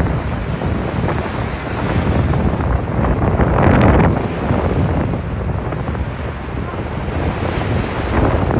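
Waves breaking on a beach, with wind buffeting the microphone. A louder rush of water comes about three and a half seconds in.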